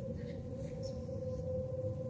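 A steady hum held on one pitch, with a fainter higher tone above it, over a low rumbling noise.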